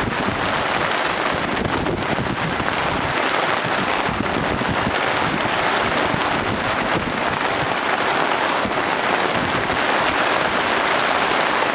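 Steady heavy rain hissing down during a thunderstorm, with wind buffeting the microphone.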